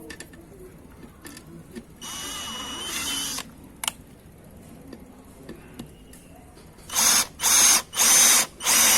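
Dewalt DCD796 cordless drill-driver with a brushed 775 motor driving a reused roofing screw. There is a brief run about two seconds in, then from about seven seconds a string of loud, even bursts, roughly two a second.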